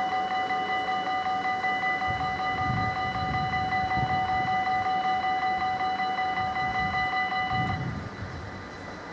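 Dutch level-crossing warning bell ringing in a rapid pulse, a steady high tone with several overtones, while the half-barriers come down. It stops abruptly about eight seconds in, as the barriers close.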